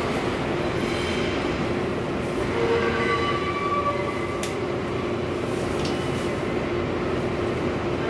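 R142A subway car standing in a station with its doors open: a steady hum from the car's equipment over general station noise, with a single sharp click about four and a half seconds in.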